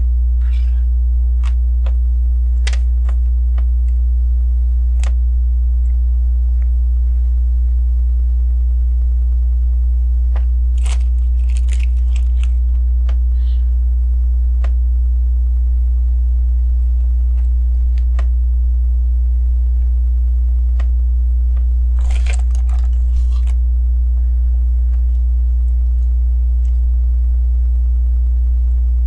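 Steady low electrical hum, the loudest sound throughout, with scattered light clicks of plastic Lego pieces being handled and two brief bursts of rattling, about eleven and twenty-two seconds in.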